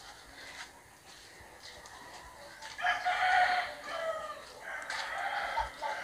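A rooster crowing, starting about three seconds in.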